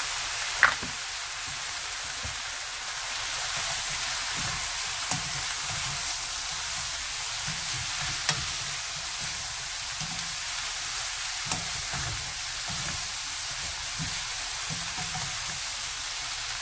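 Oyster mushrooms and julienned vegetables sizzling in a hot frying pan as they are stir-fried and tossed with a wooden spatula. A sharp knock sounds about half a second in and a smaller one near the middle.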